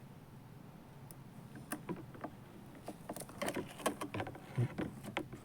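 An irregular run of light clicks and taps, like small hard objects being handled, growing busier from about three seconds in.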